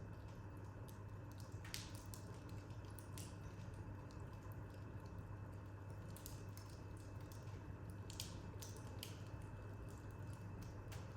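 Wood fire in an open corner fireplace crackling, with a few scattered sharp pops over a steady low hum.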